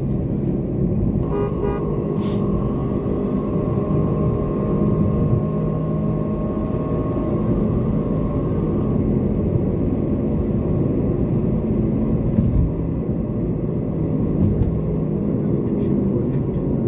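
Toyota Corolla's engine and tyre noise as it drives along the road, a steady low rumble. A vehicle horn toots briefly about a second in.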